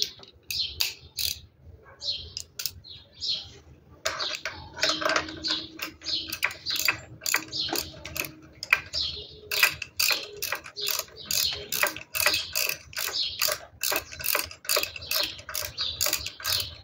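Socket ratchet wrench clicking as a bolt is turned, in short groups of clicks at first, then a steady run of about three clicks a second from about ten seconds in.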